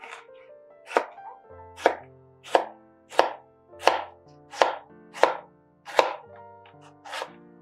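Chef's knife slicing a red bell pepper on a wooden cutting board, each cut ending in a sharp knock of the blade on the board, in a steady rhythm of about three cuts every two seconds, over soft background music.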